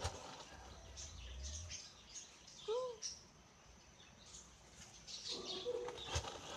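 Domestic turkey toms strutting in display, giving a low drumming hum for over a second near the start. Small birds chirp throughout, and a short arching whistled note sounds near the middle.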